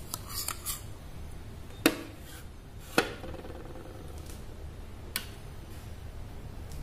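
Spoon clinking against a glass bowl of custard while chopped mango is spooned in and mixed: a few light clicks at the start, two sharp clinks about two and three seconds in, the second ringing briefly, and one more a little after five seconds.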